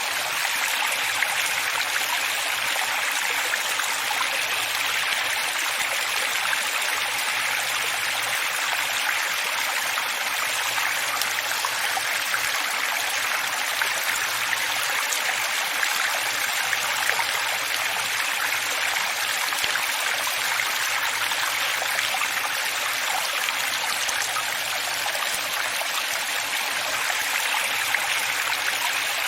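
Running water flowing in a steady, even rush, with no breaks or changes.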